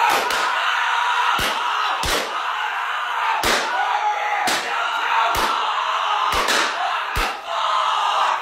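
Repeated heavy slams, about eight at uneven intervals roughly a second apart, over a steady noisy din.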